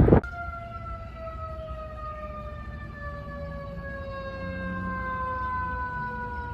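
Fire truck siren sounding one long tone that falls slowly and steadily in pitch, as a siren winding down. A short loud rush of noise cuts off just at the start.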